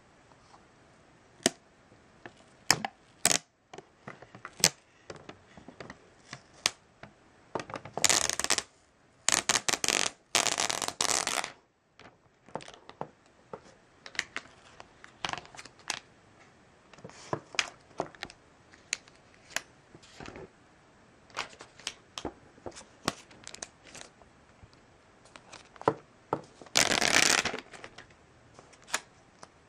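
Hands handling a new iPad mini and its cardboard box and plastic wrapping: a run of small clicks and taps, with a few seconds of rustling about a third of the way in and a shorter stretch near the end.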